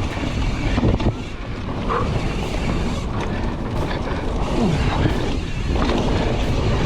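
Mountain bike riding fast downhill on a dirt trail: tyres rolling over the ground with wind buffeting the microphone, and a few sharp knocks as the bike hits bumps.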